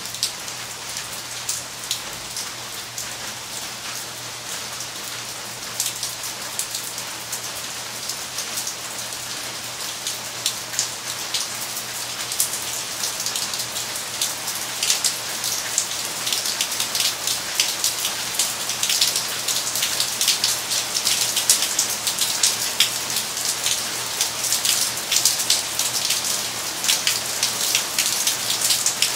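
Rain falling on a yard full of potted plants and stone steps: a steady hiss with many separate drop hits, growing a little heavier and louder toward the end.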